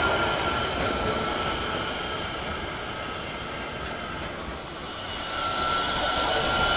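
Bombardier Incentro trams running on street track: a steady rush of wheels and traction motors that eases off around the middle, then swells again as another tram draws close. A steady electric whine comes in about five seconds in.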